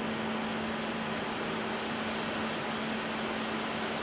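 Steady cockpit noise of an Airbus A330-300 climbing after takeoff: an even rushing hiss of airflow and air conditioning with a constant low hum underneath.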